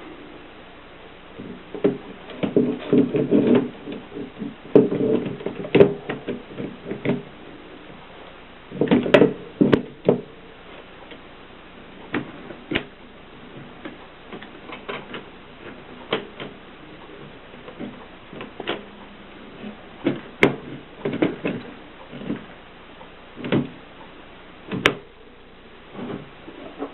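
Mercedes typewriter keys striking in quick runs of typing, then slowing to single keystrokes a second or more apart.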